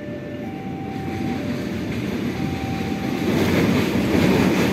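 An approaching diesel-hauled passenger train, its rumble and wheel noise growing steadily louder as it nears. Through the first three seconds a faint two-note electronic tone sounds, alternating between a higher and a lower note.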